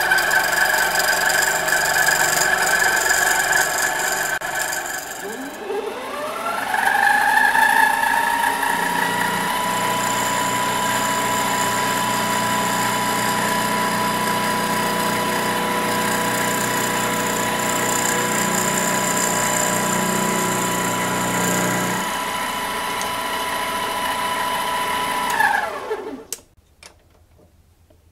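Harbor Freight metal lathe's motor and gearing running with a steady high whine, turning a small wood blank. The whine drops about five seconds in and spins back up in a rising glide, then holds steady until it winds down in a falling glide and stops near the end.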